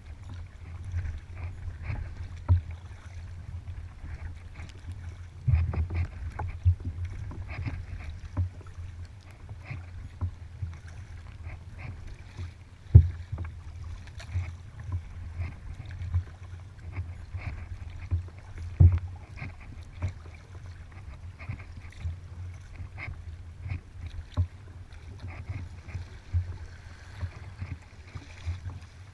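Kayak being paddled on open water: water slaps and gurgles against the hull, with irregular knocks, the sharpest about 13 and 19 seconds in.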